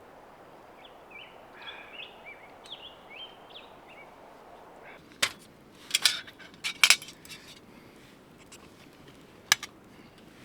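A bird sings a run of short, quick chirping notes over a steady outdoor hiss. From about halfway, camp cookware and utensils clink and clatter in several sharp, loud knocks, the loudest sounds here.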